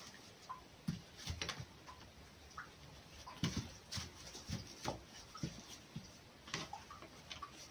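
A fox and a kitten wrestling in straw: irregular scuffling, rustling and soft knocks, with a cluster of louder ones about three and a half to five seconds in.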